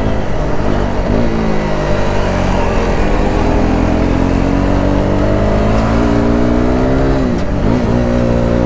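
KTM RC 390's single-cylinder engine running under way, its pitch climbing slowly as it pulls. The pitch dips briefly and picks up again about a second in and once more near the end.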